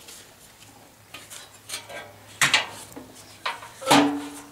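Sheet-metal furnace blower housing and squirrel-cage wheel clanking as the blower motor and wheel are handled and fitted into it: a series of sharp metallic knocks, the loudest near the end ringing briefly.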